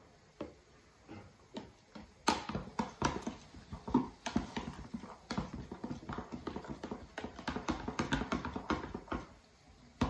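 Metal spoon stirring cornstarch into milk in a plastic measuring jug, dissolving it. It clicks and scrapes against the jug in quick rhythmic taps: a few separate taps at first, then continuous stirring from about two seconds in.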